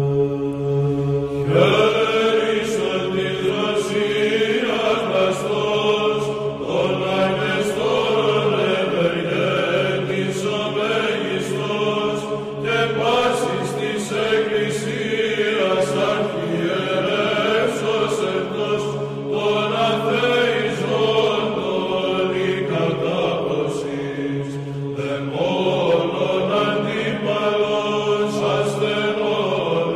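Chanted vocal music over a steady low drone: the chanting comes in about a second and a half in and moves in long rising and falling phrases.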